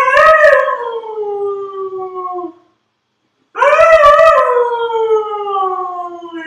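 Husky howling: two long howls a second apart. Each swells and then slides slowly down in pitch. The second starts about halfway through and is still sounding at the end.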